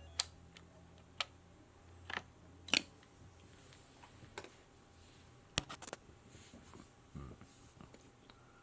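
Scattered sharp clicks and taps of small hard parts being handled, about seven at irregular intervals, with a cluster of quick clicks just past the middle, over a faint steady hum.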